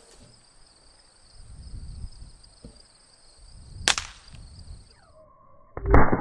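Hi-Point pistol firing a primer-only squib round: a single sharp pop about four seconds in instead of a full gunshot, leaving the bullet stuck in the barrel. Near the end comes a louder, duller bang. Insects chirp steadily until about five seconds in.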